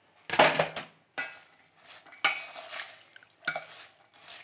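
A spoon stirring and scraping crispy fried corn kernels with chopped onion and coriander around a stainless steel bowl, in about four separate strokes.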